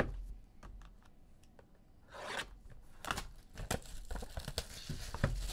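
Clear plastic shrink-wrap being torn and crinkled off a sealed trading-card box. It starts with a sharp knock, then gives irregular crackling and tearing, densest in the second half.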